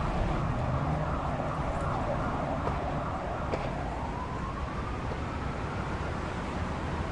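City street traffic noise, with a whining tone that rises in pitch about four seconds in and then holds steady.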